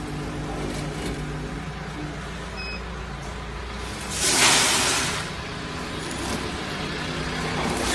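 Vertical granule packing machine running with a steady hum, and a loud hiss of about a second some four seconds in.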